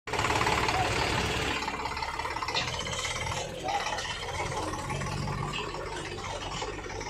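Eicher 548 tractor's diesel engine running at idle, its low note strengthening for a moment about five seconds in.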